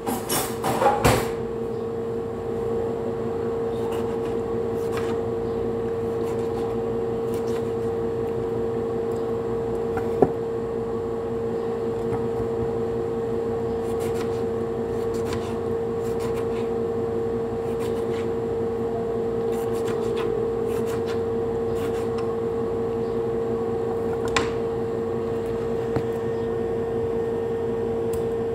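A steady, pitched electric hum from a kitchen appliance, with a few knocks near the start and scattered light taps of a knife on a cutting board as a tomato is sliced.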